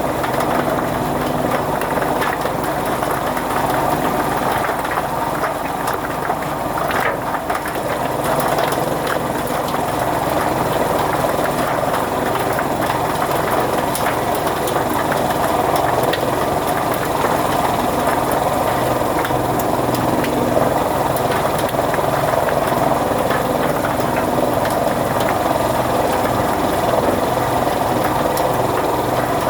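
Chaff cutter (fodder-cutting machine) running steadily, a continuous machine drone with no pauses.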